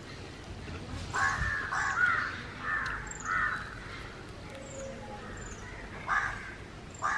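Crows cawing: a quick run of harsh caws in the first few seconds, then two more near the end.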